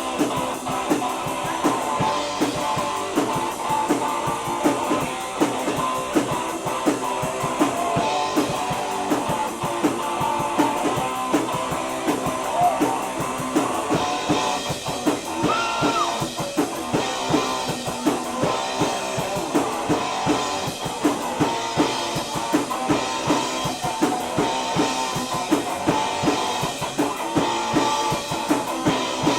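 A rock band plays an instrumental passage without vocals: guitars over a drum kit keeping a steady beat. The sound grows fuller about halfway through.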